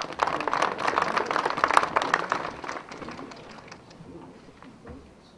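Crowd applauding, loudest in the first couple of seconds, then thinning out and dying away by about four seconds in.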